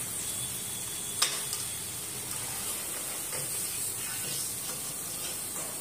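Batter-coated green chillies (mirchi bajji) deep-frying in hot oil in a kadai: a steady sizzle, with one sharp tap about a second in.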